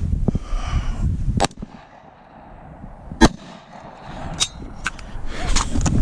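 Gunshots: one sharp, loud shot about three seconds in, with several fainter sharp cracks before and after it.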